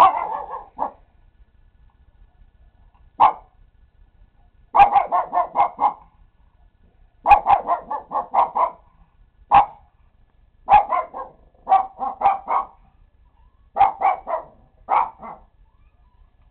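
A cat chattering: quick runs of short chirps, about five a second and each run lasting around a second, mixed with single chirps, coming in bursts every second or two.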